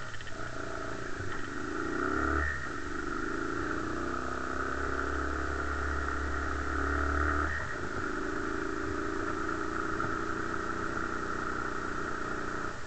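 Bashan 250 ATV's 250 cc engine running while riding. Its note rises over the first two seconds, dips sharply about two and a half seconds in and again near eight seconds, and then runs steadily until it drops away just before the end.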